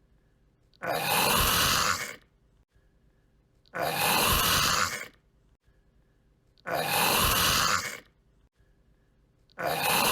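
A person clearing their throat: four harsh, raspy throat clears, evenly spaced about three seconds apart, each lasting just over a second.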